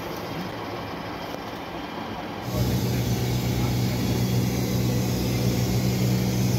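In-flight noise inside a McDonnell Douglas MD-83 airliner: a steady rush of air and engine noise in the cockpit. About two and a half seconds in it cuts to a louder, steady low drone with a hum, heard in the galley.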